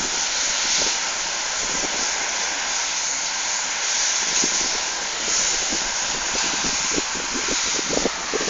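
Steady rushing noise of CLAAS combine harvesters working far across the field, mixed with wind on the microphone. Short low thumps from gusts come and go, more often near the end.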